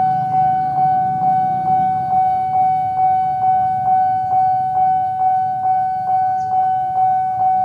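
Railway level-crossing warning bell ringing steadily, an even 'ding-ding' struck about twice a second over a sustained ringing tone, warning that a train is approaching the crossing.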